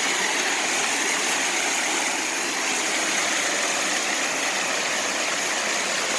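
Small waterfall, about ten feet high, rushing steadily, its flow up after a decent amount of rain the day before.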